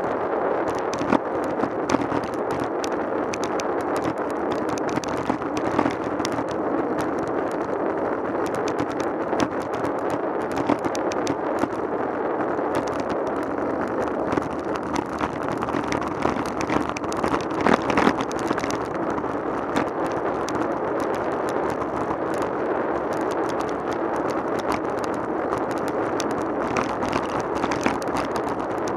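Steady rush of wind and tyre noise from a road bike rolling along tarmac, with frequent sharp clicks and knocks, louder about two-thirds of the way through.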